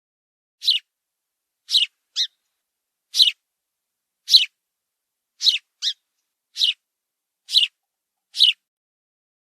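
House sparrow chirping: single short chirps repeated about once a second, twice in quick pairs, with clean silence between them.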